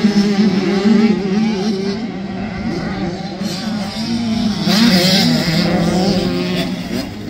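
Motocross dirt bike engines revving up and down as the bikes ride the track, their pitch rising and falling, with several engines overlapping and a surge about five seconds in.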